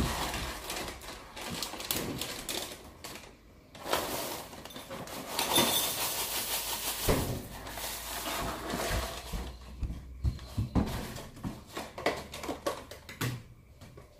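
Irregular clicks, knocks and rustling as breakfast things are handled in a kitchen, with a denser stretch of rattling noise in the middle.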